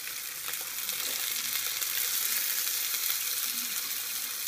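Chicken breasts sizzling in a frying pan on the heat: a steady hiss with faint scattered crackles.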